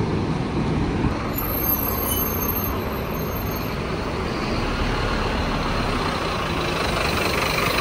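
City bus's engine running close by, a steady loud noise, as the bus pulls away from the stop.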